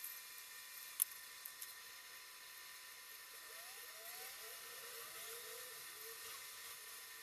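Faint steady hiss and thin high whine at an electronics soldering bench, with one sharp click about a second in, two small ticks just after it, and a few faint short rising chirps in the second half.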